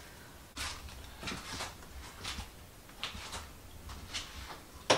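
Small items being handled on a cluttered cosmetics vanity: a run of short rustles, scrapes and light knocks, then one sharp click, the loudest sound, just before the end.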